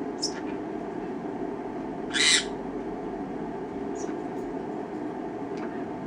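Green-cheeked conure giving one short, sharp high-pitched call about two seconds in, with a few faint brief chirps around it, over a steady low room hum.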